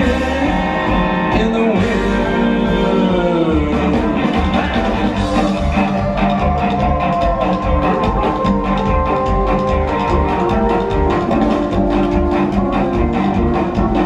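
Live rockabilly band playing: electric guitar, upright bass and drum kit.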